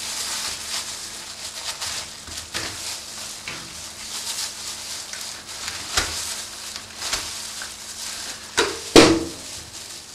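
Boning knife cutting and scraping meat away from the bone of a pork hind shank, with wet slicing and scraping sounds. A few sharp knocks of the knife or meat on the stainless steel table come through, the loudest near the end.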